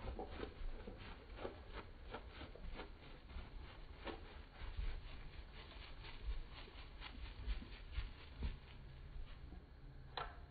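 Small wet dog moving about on carpet: faint, irregular light ticks and scuffs of paws and fur, with one sharper tick near the end.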